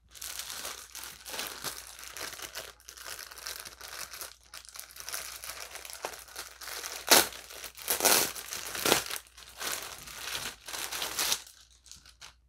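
Packaging wrapping crinkling and rustling as it is pulled open and off a soft blanket by hand, with a few louder crackles about two-thirds of the way in, dying away just before the end.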